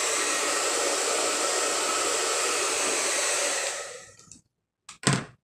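Handheld hair dryer blowing steadily, then switched off about four seconds in, its rush dying away over about half a second. Two short knocks follow near the end, the second louder.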